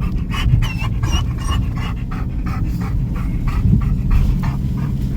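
A dog panting quickly, about three to four breaths a second, over the steady low rumble of a vehicle driving on a rough road.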